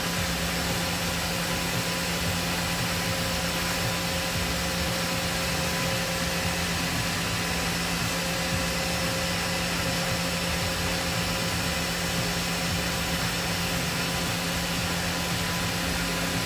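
Laser cutter's exhaust fans and air-assist pump running steadily: a constant rush of air with a low hum and faint steady high tones, while the diode laser cuts through MDF.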